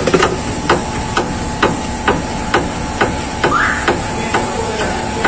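Volkswagen Amarok steering rack knocking in its worn mounting bushings as the raised front wheel is rocked side to side, a sharp metallic knock about twice a second.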